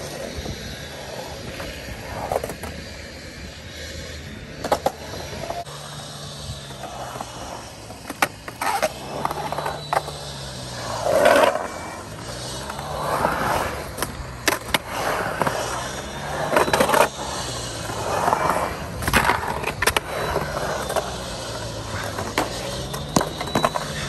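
Urethane skateboard wheels rolling around a concrete pool bowl, the rolling tone rising and falling in slow arcs as the board gains and loses speed up and down the walls. Sharp clacks and scrapes as trucks and tail hit the pool coping, coming more often and louder in the second half.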